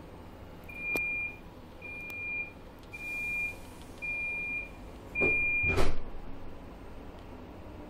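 An electronic warning signal beeping five times, evenly about a second apart, on a train standing at the platform, typical of the door-closing warning before departure. A loud, sudden thump follows right after the last beep.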